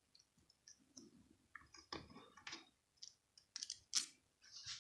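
Faint, scattered clicks and taps of small metal reel parts being handled and fitted by hand into a spinning reel's body, with several sharp clicks in the second half.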